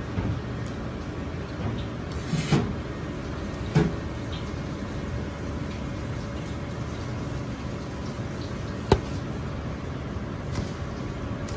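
Steady low kitchen background rumble, with a couple of soft knocks as pieces of red bell pepper are moved about on a plastic cutting board. Near the end comes one sharp tap as a Chinese cleaver strikes the board.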